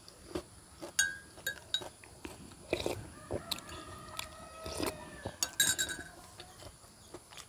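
A metal spoon clicking against a ceramic bowl, with chewing while eating. An animal calls faintly in the background for a couple of seconds in the middle.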